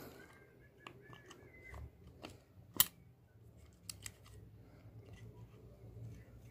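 Faint clicks and light scrapes of small metal engine parts being handled, with one sharper click about three seconds in.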